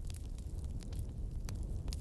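Fire crackling: scattered sharp pops, about four or five in two seconds, over a steady low rumble of the flames.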